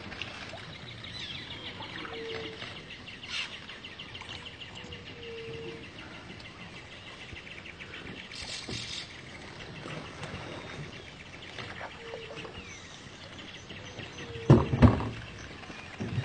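Outdoor ambience with birds calling: a rapid pulsing trill and a few short, low whistled notes that repeat. A couple of loud thumps come near the end, the loudest sounds here.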